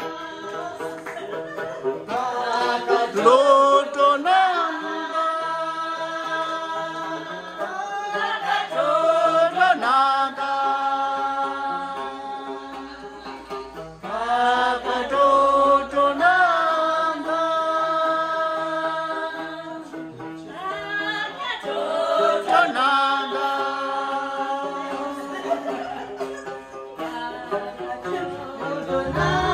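Music: a voice sings long held notes over instrumental accompaniment. A new phrase begins about every six seconds, opening with wavering slides in pitch.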